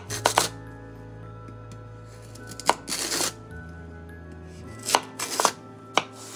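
Kitchen knife slicing through lotus root onto a cutting board: short clusters of crisp cuts every two seconds or so, with a single cut near the end. Soft background music with held notes runs underneath.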